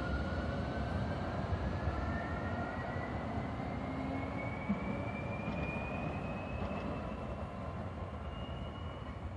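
Tram pulling away, its traction motors giving a thin whine that rises steadily in pitch for several seconds and stops near the end, over a low rumble of wheels and street traffic.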